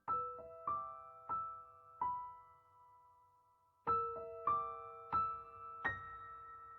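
Background music: a slow, gentle solo piano melody of single notes, each struck and left to ring out, with a pause of about two seconds in the middle.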